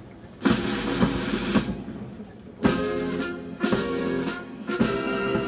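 Military brass band playing a march as the guard marches off, in short, loud phrases that start suddenly.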